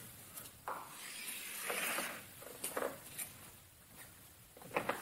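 Chalk drawn across a blackboard in one long smooth stroke about two seconds in, with a few short chalk knocks against the board around it.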